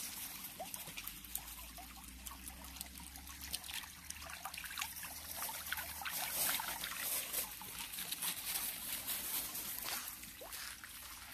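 Shallow stream trickling over pebbles, with many small splashes and ticks scattered through it.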